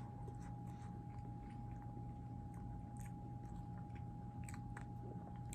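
Faint, irregular soft clicks and ticks over a steady low hum and a thin steady tone.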